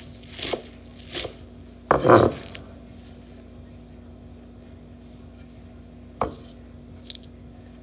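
Kitchen knife chopping spinach on a wooden cutting board: two short knife strikes, then a longer, louder clatter about two seconds in, and a single sharp knock near the end.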